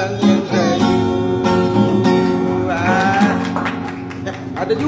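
Background music led by plucked and strummed acoustic guitar.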